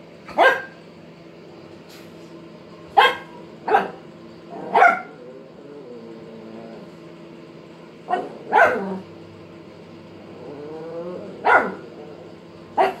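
Petit Brabançon barking: about eight short, sharp barks, some singly and some in quick pairs, spread unevenly. These are play barks, the dog inviting a cat to play.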